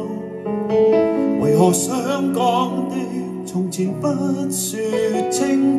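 A recorded pop ballad playing through a pair of JBL K2 S5500 floorstanding loudspeakers driven by a McIntosh MC602 power amplifier, heard in the room. It is a melodic passage of sustained notes over held chords, with a wavering vibrato line about two seconds in.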